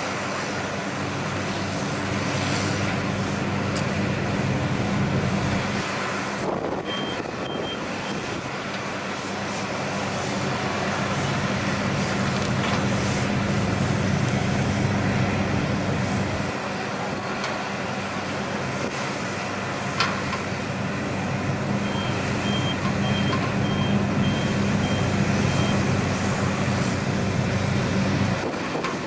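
Heavy-equipment diesel engines running steadily under load. A reversing alarm beeps briefly about seven seconds in and again in a run of beeps about two a second later on. The engine drone drops out near the end.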